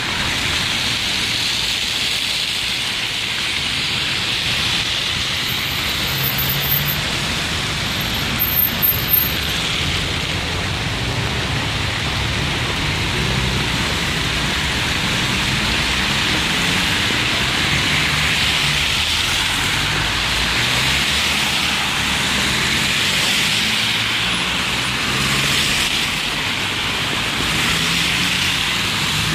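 Steady hiss of city traffic on wet roads mixed with light rain, with a low rumble of passing cars. Two short, thin, high whistles come in between about five and ten seconds in.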